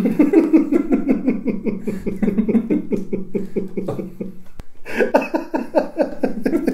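Two men laughing hard, in rapid pulsing bursts, with a brief break about four and a half seconds in before the laughter picks up again.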